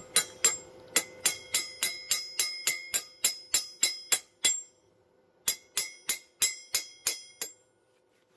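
Hammer blows on steel, each strike ringing, about three a second in two runs: a long run, a short break, then about seven more blows before they stop.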